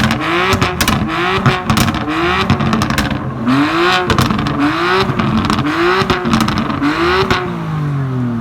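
BMW M2 Competition's twin-turbo straight-six, breathing through a Capristo exhaust, revved in quick blips about once a second, with crackles and pops between the blips. Near the end the revs fall back toward idle.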